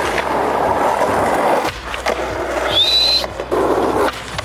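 Skateboard wheels rolling on an asphalt path, a steady rough rumble, with a sharp clack about halfway through and another a little after three seconds. A short, high rising whistle sounds briefly near three seconds.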